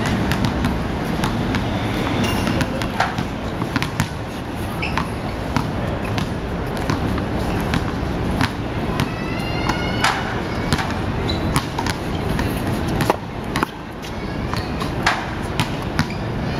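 Basketballs bouncing on an asphalt playground court: irregular sharp thuds over a steady urban background hum.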